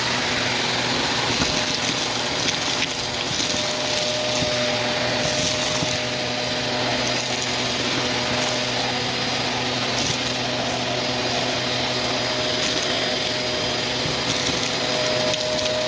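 Vacuum cleaner running steadily with a dusting brush attachment, its motor whine unbroken, with faint brushing and scratching as the bristles work over a dusty surface.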